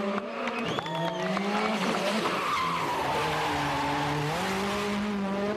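Rally car engine revving hard through a tarmac bend, its pitch climbing and dropping with gear changes, with tyres squealing.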